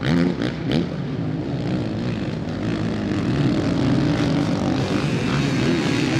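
Several motocross bikes' engines revving on the track, their pitch rising and falling with the throttle as they take the jumps, with a few sharp exhaust cracks in the first second.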